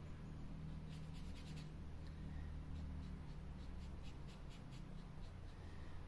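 Dual-tip felt marker tip scratching and tapping on a small piece of laser-cut wood as it is coloured in: short runs of quick, light ticks.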